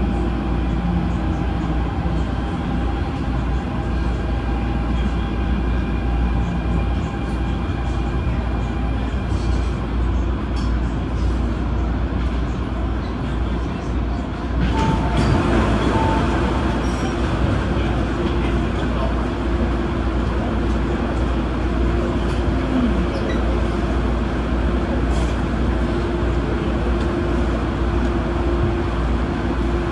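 MTR Tung Chung Line Adtranz-CAF electric multiple unit running along the line: a steady rumble with a few faint steady tones. About halfway through, the noise suddenly becomes louder and brighter and stays that way.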